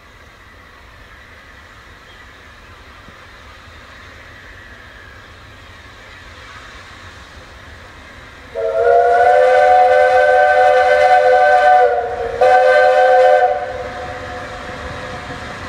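Narrow-gauge steam locomotive approaching, its sound slowly growing louder, then sounding its whistle as a chord of several notes: one long blast of about three seconds, a brief break, and a shorter second blast.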